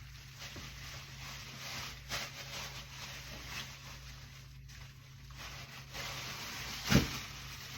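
Soft rustling and handling of raw chicken being worked around in a plastic bag of seasoning, over a steady low hum, with one sharp knock about seven seconds in.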